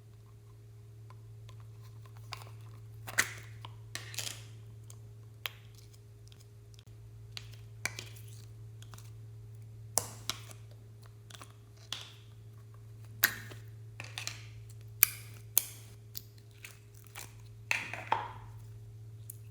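Slime being kneaded and stretched by hand, giving irregular sharp, sticky pops and crackles about once a second. A steady low hum lies underneath.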